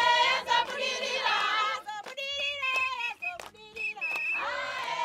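Group of women singing together, with a long held note in the first half-second, then shorter broken phrases and a few handclaps.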